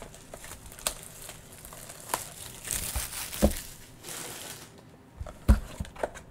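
Hands handling and opening a cardboard 2021 Panini Mosaic NFL Mega box: its packaging crinkling and tearing, with a couple of knocks of the box against the table.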